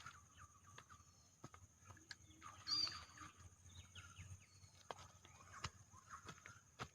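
Faint bird chirps over a steady high-pitched hum, with a few scattered clicks.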